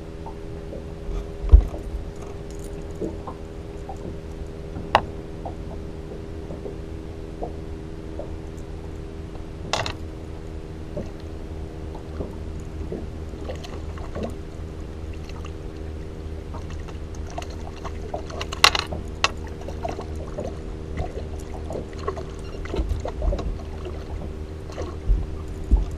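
Steady hum of a Minn Kota Terrova electric trolling motor holding the boat in place, with a low rumble underneath and a few sharp knocks on the boat scattered through.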